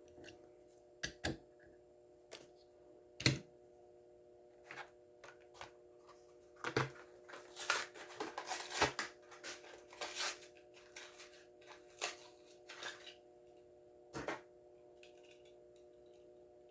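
Plastic blister pack and cardboard backing of a die-cast toy car being opened by hand: irregular clicks, crackles and crinkles, busiest in the middle, over a faint steady hum.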